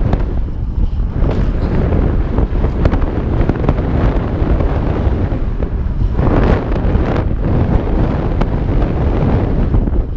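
Wind buffeting the microphone of a helmet-mounted camera on a fast mountain bike descent, over the rumble of knobby tyres on a dirt trail and small rattling ticks from the bike. About six seconds in the tyre noise swells into a louder rush, twice.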